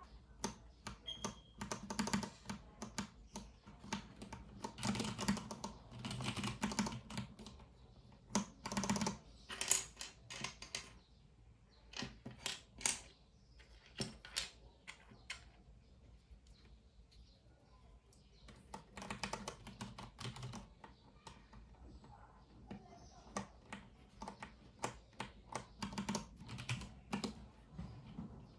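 Typing on a Filco Minila Air mechanical keyboard with brown (tactile, non-clicky) switches: runs of quick keystrokes with short pauses, thinning out about halfway through before picking up again.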